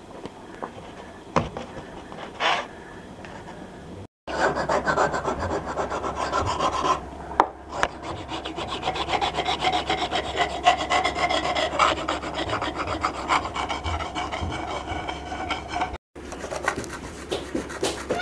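Cured two-component polyester filler on a countertop being rubbed down by hand with an abrasive block, in fast, even back-and-forth scraping strokes. The scraping starts abruptly about four seconds in and stops abruptly near the end, after a few quiet handling knocks.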